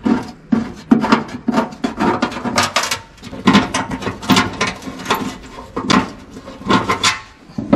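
Irregular metallic clicks and knocks as a tack-welded flat-steel bracket is worked off its bolt on the inner fender.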